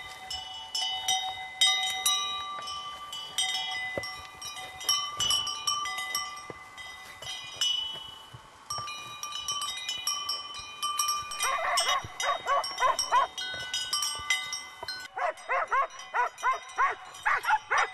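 Bells on grazing horses clinking and ringing at several pitches. From about two-thirds of the way through, an animal yelps in quick repeated calls over the bells.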